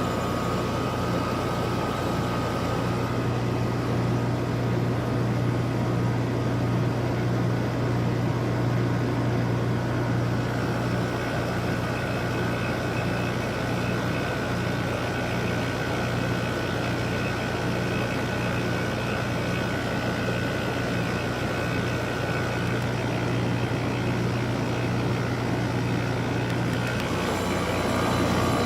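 8000 BTU LG window air conditioner running in dehumidify mode, its compressor humming steadily under the fan's air noise. The low hum changes near the end.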